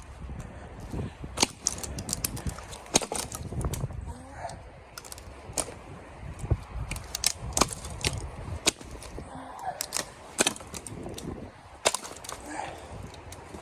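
Dry wood cracking and snapping: a string of irregularly spaced sharp cracks, some much louder than others, over a low rumble of handling.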